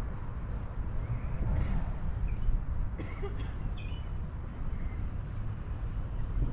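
Wind rumbling unevenly on the microphone outdoors, with a sharp click about three seconds in and a few brief high tones just after it.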